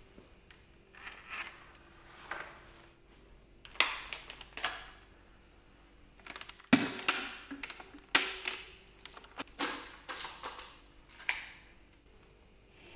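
Plastic clicks and snaps from handling a Dyson V6 cordless vacuum as its charger is disconnected and its clear dust bin is unclipped and taken off. A string of short, sharp clicks and knocks, the loudest about halfway through, with the motor not running.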